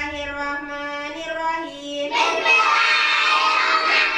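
One voice sings alone on long held notes, then about two seconds in a class of young children joins in and they sing loudly together.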